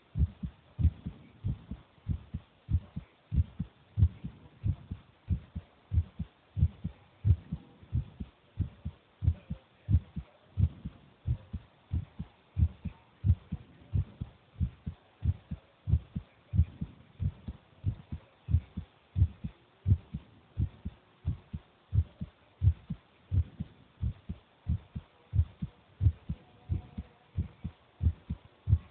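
A ten-year-old child's heartbeat: low thumps in a steady, even rhythm.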